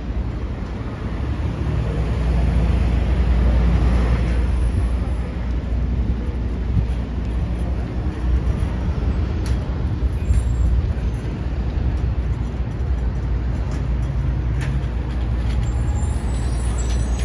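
City street traffic: a steady low rumble of engines and tyres from buses and cars, swelling about two seconds in as heavier vehicles pass.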